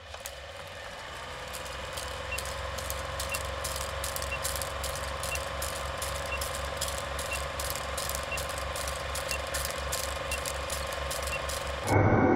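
Film projector running: a fast mechanical clatter over a steady hum, with scattered crackle and pops, as on an old film countdown leader, and a faint short beep about once a second. Just before the end it gives way abruptly to louder music.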